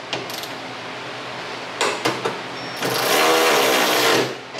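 Cordless electric ratchet driving a hood-hinge bolt: a few sharp clicks about two seconds in, then a whirring run of about a second and a half with the motor's pitch wavering as the bolt is snugged down.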